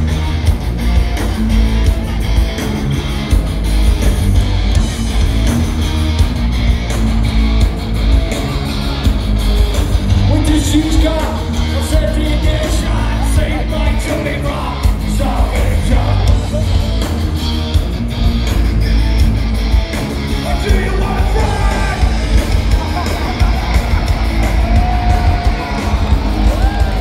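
Live thrash metal band playing at full volume: electric guitar, bass and drums with shouted vocals, heard through a phone's microphone in the crowd, with a heavy low end.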